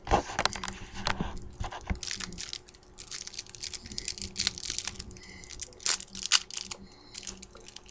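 Cellophane wrapper of a baseball card cello pack crinkling and crackling irregularly as fingers work it open.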